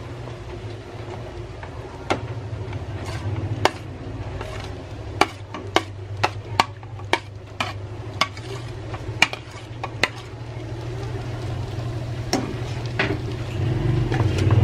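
A spatula scraping diced hotdog and tofu off a plate into a frying pan, with irregular sharp taps of the spatula against the plate and pan, then stirring in the pan near the end. A steady low hum runs underneath.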